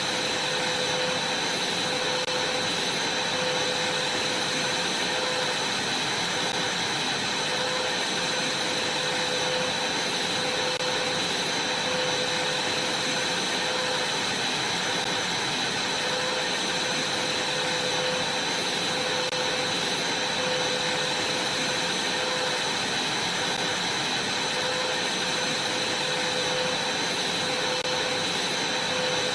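Vacuum cleaner running steadily: a constant rushing hiss with a steady high whine, and a fainter lower tone that wavers a little.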